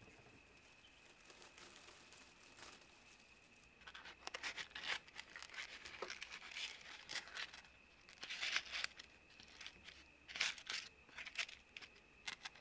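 Dried herb sprigs and paper crackling and rustling under fingers as a sprig is handled and pressed onto a paper card, in short irregular bursts that begin about four seconds in.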